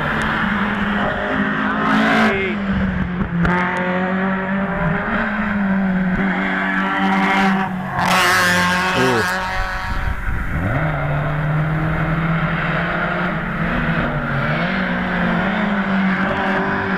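Racing car's engine revving hard through its gears, the pitch stepping up and dropping back with gear changes. It is loudest and harshest about eight seconds in.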